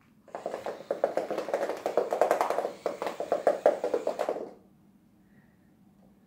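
Motorised smart cat ball rolling and bouncing on a hard floor: a rapid rattling clatter of taps that starts just after the start and stops suddenly about four and a half seconds in.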